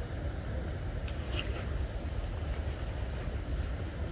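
Wind rumbling on the microphone over a steady rushing noise, with a few faint short high sounds about a second in.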